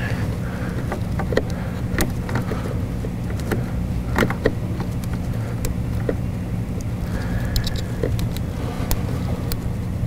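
Scattered clicks and small rattles of test-lead clips and connectors being handled and moved from one fuel injector's connector to the next, over a steady low hum.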